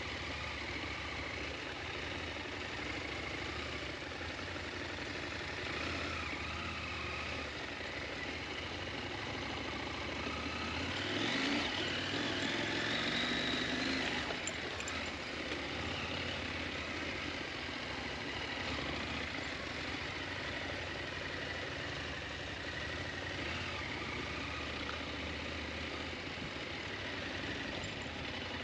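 KTM 890 Adventure's parallel-twin engine running at low revs during off-road riding, louder for a few seconds near the middle.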